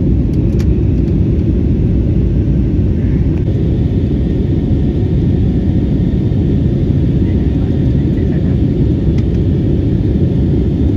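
Airliner cabin noise in flight: the steady low rumble of the engines and rushing air, heard inside the passenger cabin.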